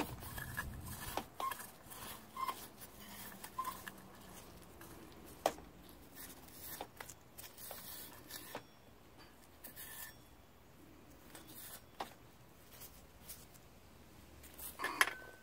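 Scattered clicks and light knocks from metal parts of a disassembled small outboard motor being handled, with one sharper knock about five and a half seconds in.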